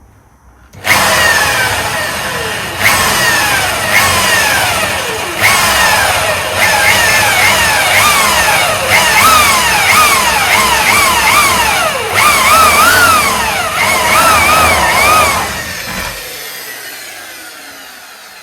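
Electric drill boring a pilot hole, starting about a second in. Its motor pitch repeatedly jumps up and sags again as the trigger is squeezed and the bit bites, then it winds down near the end.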